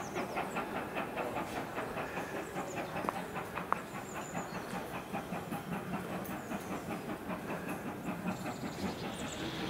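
Steam-hauled train running past, with a fast, even clicking beat of about six a second over a steady hiss.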